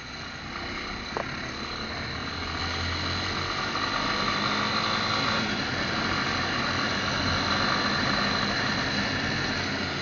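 Motorcycle engine running under way, with wind and road noise, getting louder over the first few seconds and then holding steady. A brief click about a second in.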